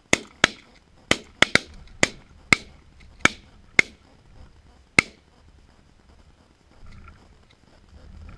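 Volley of about ten shotgun shots from several waterfowl hunters firing together. The shots come quickly and overlap in the first two and a half seconds, then space out, with the last one about five seconds in.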